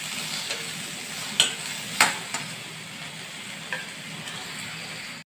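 Shallots and tomato pieces sizzling in oil in a stainless steel kadai while a steel ladle stirs them, clinking against the pan a few times. The sound cuts off suddenly near the end.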